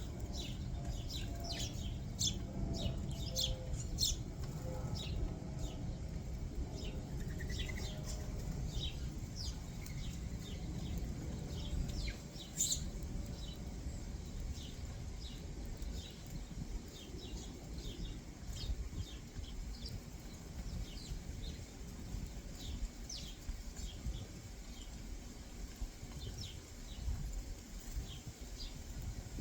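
Backyard songbirds giving short, sharp chirps again and again, in a quick run at the start and more sparsely later, over a low steady rumble that eases about twelve seconds in.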